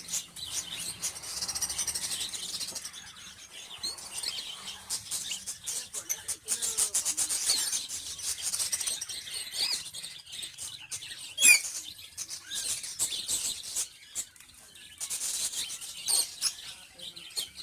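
Baby cockatiels chirping rapidly and continuously, the insistent high-pitched begging calls of chicks at hand-feeding time. There is a sharp click about eleven seconds in.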